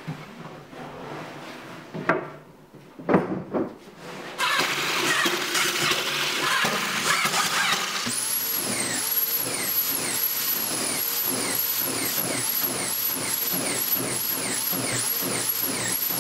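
Cordless drill/driver driving a row of screws through plywood. Each screw is a quick rise and fall of the motor's whine, coming about two a second. Before the screwing starts there are a couple of knocks as plywood panels are handled.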